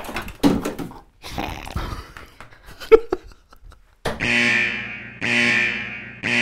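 Metal cutlery clattering and rattling as knives and forks are taken from a drawer, with a sharp knock about three seconds in. From about four seconds a buzzing alarm sound effect blares about once a second.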